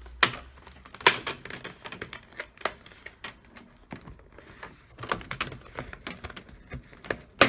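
Plastic snap clips of a Dell Inspiron 17 5000 series laptop's screen bezel clicking and cracking loose as it is pried off along the edge. The clicks are irregular, with the sharpest snaps just after the start, about a second in and near the end, and quieter plastic rustling between them.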